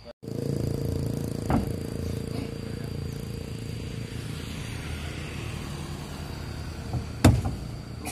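A truck engine idling steadily while teak logs are unloaded off its bed. Two heavy wooden thuds come from the logs, one about a second and a half in and a louder one near the end.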